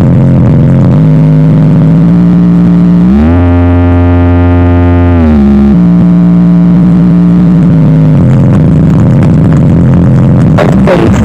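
Sound check track played very loud through a large sound system's speaker boxes: a sustained buzzy tone that glides up in pitch about three seconds in, holds, then glides back down, with sharp beat-like hits coming in near the end.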